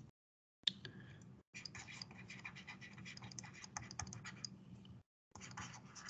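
Faint scratching and tapping of a stylus handwriting on a tablet, with a few brief dropouts to silence.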